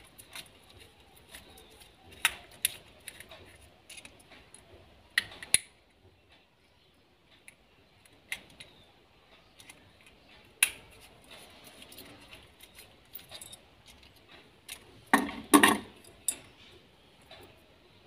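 Scattered small clicks and taps of a screwdriver and the metal and plastic parts of an electrical switch being handled as its screw is tightened during reassembly, with a louder cluster of knocks near the end.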